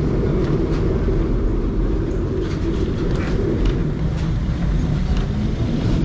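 Lisbon Remodelado heritage tram running on its rails, heard from on board: a steady low rumble of wheels and motor with scattered clicks and rattles.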